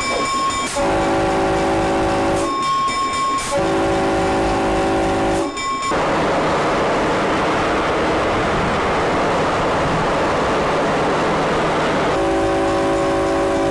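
Diesel locomotive's multi-note air horn sounding long blasts of about two seconds each: two in quick succession, then a third near the end. A higher single tone sounds briefly between the first blasts, and the steady rumble of the train rolling over the track fills the gap between the second and third blasts.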